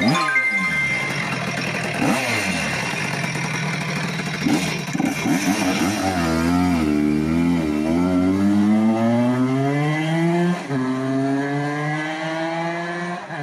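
Two-stroke engine of a Jawa Pionier 21 moped bored out to 100 cc, revved in short blips and then pulling away, its pitch climbing steadily with a gear change about ten seconds in and growing fainter as it rides off. The engine is freshly assembled and not yet tuned.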